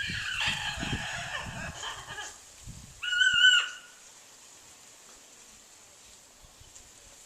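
A large pet bird calling loudly and harshly: one drawn-out call over the first two seconds or so, then a louder, shorter cry about three seconds in, then quiet.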